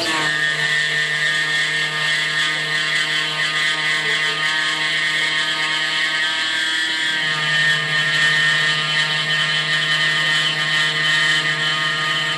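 Sieg X2 mini mill's 3/4 inch high speed steel end mill cutting mild steel at about 2500 RPM on a light finishing pass, a steady whine of many tones over the hiss of the coolant spray. The pitch shifts slightly about halfway through.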